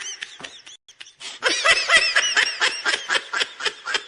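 High-pitched, rapid cartoonish laughter sound effect in quick repeated pulses. It breaks off briefly about a second in, then starts again in a long run that trails away.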